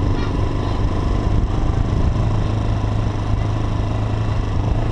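Trail motorcycle's engine running at a steady low speed, heard from the rider's seat, with a constant rushing noise over it.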